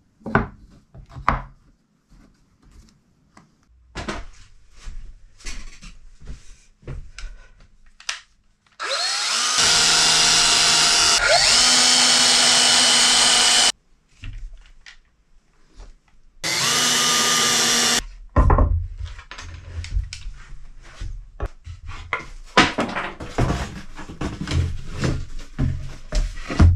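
Cordless drill running in two bursts: one of about five seconds starting some nine seconds in, its pitch rising partway through, and a shorter one of about a second and a half later on. Knocks and clatter of wooden blocks being handled come between and after the bursts.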